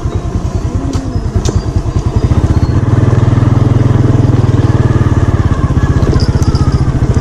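Motorcycle engine running while riding, a steady rapid pulsing that gets louder about three seconds in.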